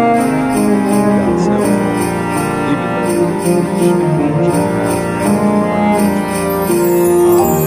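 Background music of held, pitched notes that change every second or so, with no speech.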